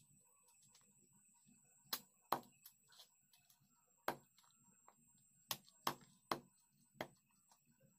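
A heavy kitchen knife chopping chicken pieces on a wooden chopping block: seven sharp knocks in uneven groups, starting about two seconds in.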